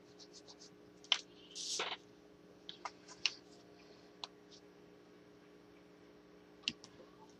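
Scattered small clicks and taps of a clear acrylic stamp block being inked and pressed onto card stock, with a sharper click about a second in and a brief rustle of paper just before two seconds. Under it a faint steady hum.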